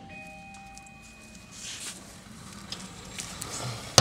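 A lull between mallet blows on a new sheet-steel floor pan. Low handling noise with a faint steady high tone over the first second and a half, a few light clicks, then a mallet blow lands right at the end.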